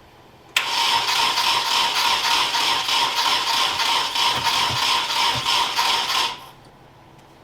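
Nissan KA24DE four-cylinder engine cranking on the starter for about six seconds without catching: a steady whir with an even pulse of compression strokes that starts and stops abruptly. It is a crank-no-start with spark and fuel present, which the owner suspects is off ignition timing.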